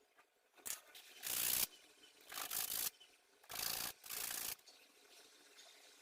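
Small piece of wood being sanded by hand: four short rubbing strokes of about half a second each, coming within the middle few seconds.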